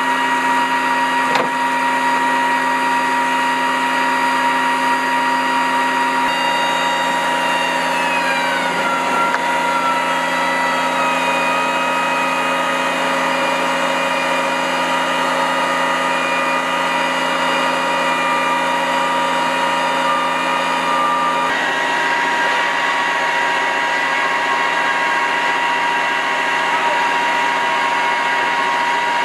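HIMARS rocket launcher's reload hoist machinery running with a steady, layered whine as the boom lifts a rocket pod. One tone slides down in pitch a few seconds in, and the mix of tones shifts about three-quarters of the way through.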